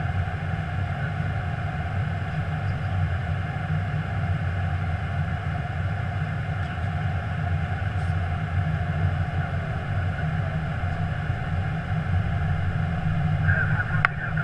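Steady flight-deck noise of an Airbus A321 in flight, a low even hum of airflow and engines. Near the end there is a sharp click, and a radio voice begins.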